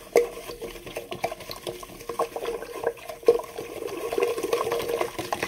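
Wooden spoon stirring coarse salt and hot water in a glass mason jar: a steady run of irregular scrapes and knocks against the glass, with water swishing, as the salt is dissolved for a brine.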